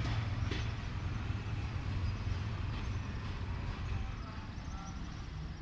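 Low rumble of a departing passenger train, slowly fading as it pulls away down the track.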